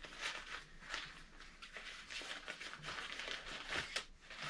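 Soft, scattered rustling and small clicks of packaging and a folded tripod being unwrapped and handled, with one sharper click about four seconds in.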